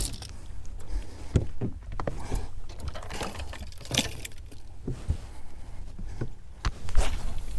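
Fishing tackle being handled on a boat deck while a double rig is set up: scattered clicks, knocks and light metallic rattles at irregular times, the sharpest about four and seven seconds in.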